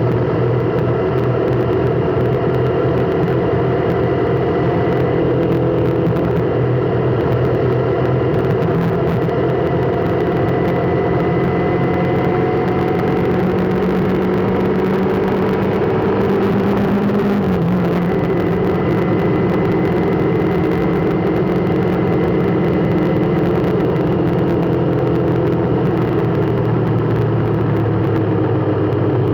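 Motor vehicle running steadily, a constant engine hum with a faint high whine above it.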